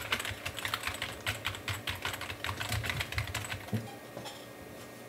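Typing on a computer keyboard: a quick run of keystroke clicks that stops about four seconds in.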